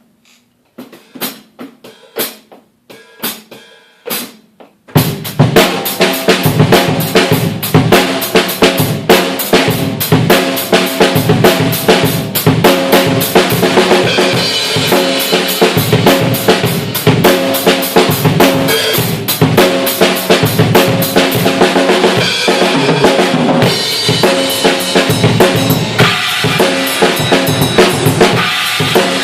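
Tama Starclassic Performer birch/bubinga drum kit: a few separate hits, then from about five seconds in a loud, dense warm-up groove with rapid bass drum strokes under snare and cymbals. The drums are not yet fully tuned.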